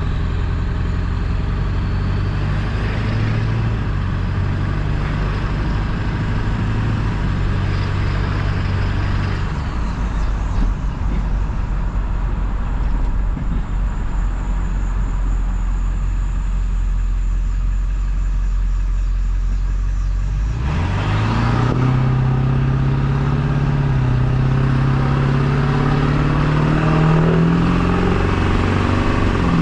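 Straight-piped Ford 7.3 L Powerstroke turbo-diesel V8 pulling the truck along, with a high turbo whistle climbing as it accelerates. It eases off for about ten seconds in the middle, then accelerates again about two-thirds of the way in, the engine note rising steadily.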